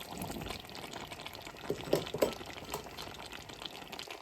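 Chicken curry being stirred with pieces of denga added to the pot: wet sloshing and simmering with small clicks of the spoon, and a couple of louder knocks about two seconds in.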